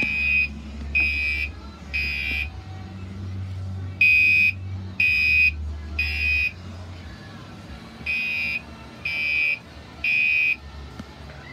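Gentex Commander 3 fire alarm sounding a steady tone in the three-pulse temporal code: three half-second blasts about a second apart, then a short pause, repeated three times. This is the standard evacuation signal.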